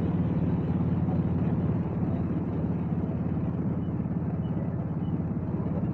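Motorcycle engine running at a steady cruise, a low steady drone under road and wind noise, easing off slightly about two seconds in.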